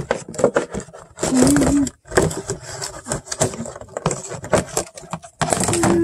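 Plastic food containers and packaging being handled: irregular clattering, rustling and scraping.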